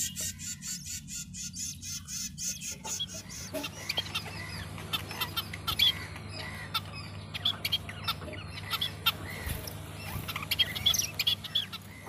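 Week-old budgerigar chicks cheeping in the nest: a rapid run of short, squeaky begging calls that starts about three seconds in and carries on, over a steady low hum.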